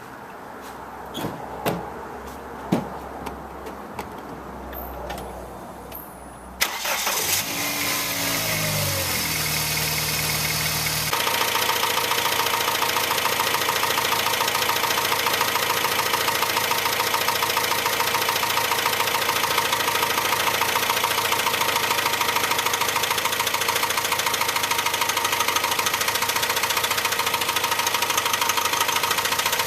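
A few light clicks and knocks, then about six and a half seconds in the 1998 Dodge Neon's 2.0-litre four-cylinder engine starts with its oil drained and revs up, climbing in pitch for a few seconds. It then runs steadily at high revs, being run dry to blow the engine.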